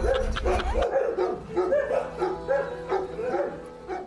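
Several large dogs whining and yipping in many short, rising-and-falling calls, fading toward the end.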